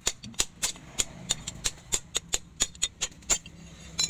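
Hammer blows on a leaf-spring steel knife blade resting on a steel anvil: a rapid, even run of sharp metallic strikes, about three a second, each with a brief ring.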